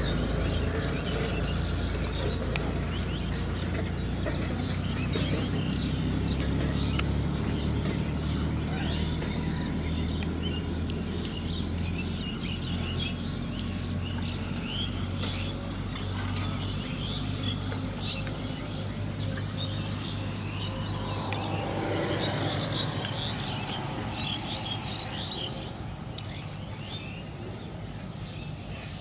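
Outdoor ambience of small birds chirping, busiest about three-quarters of the way through, over a thin steady high whine. A low rumble underneath fades away over the first two-thirds.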